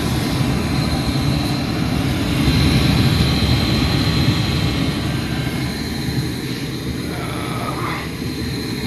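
Propane furnace running: a steady rumble of the burners and fans, with a faint steady high whine.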